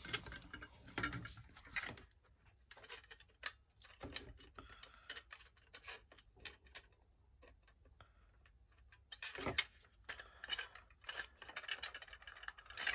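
Scattered light clicks and clacks of 3D-printed plastic blaster parts and metal rods being handled and fitted together, sparse in the middle, with a louder knock about two-thirds of the way in and more clicking toward the end.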